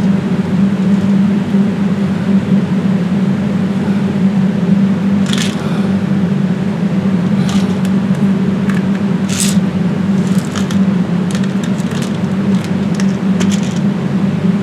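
A loud, steady mechanical hum. From about five seconds in, a handful of short clicks and scuffs sound over it.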